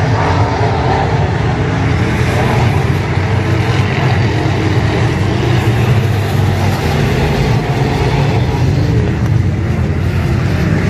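A field of IMCA Modified dirt-track race cars racing, their V8 engines running loud and continuous at race speed.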